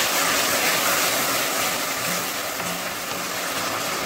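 Sauce sizzling in a hot wok of onion and capsicum pieces as a spatula stirs it: a steady hiss, loudest in the first second and easing slightly after.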